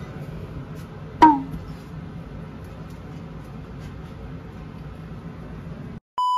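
Faint room noise with a short sharp squeak that falls quickly in pitch about a second in. Near the end the sound cuts out and a steady test-tone beep starts, the kind that goes with TV colour bars.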